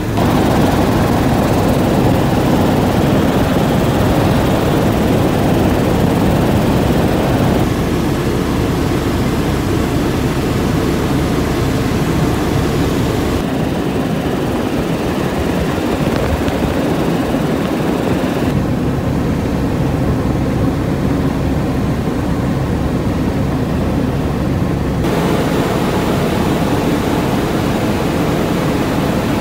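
Helicopter in flight heard from inside the cabin: a loud, steady drone of rotor and engine. Its character shifts abruptly a few times.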